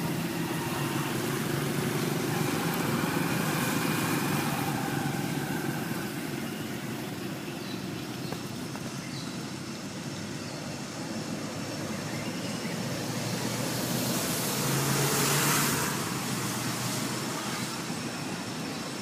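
Road traffic: vehicles passing on a nearby road, a steady noise that swells twice as they go by.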